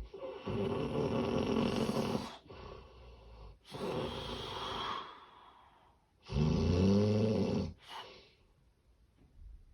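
Loud, irregular snoring in separate strokes: a long rattling snore, a weaker breath-snore, then another loud snore that rises in pitch about six and a half seconds in, followed by a quiet gap of over a second. It is presented as the snoring of severe sleep apnea.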